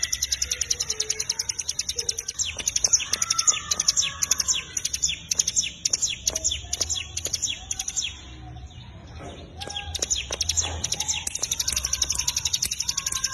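Cigun (ciblek gunung, a small songbird kept in Indonesia) singing a fast, high, chattering song of evenly repeated notes. It breaks off briefly about eight seconds in, then resumes.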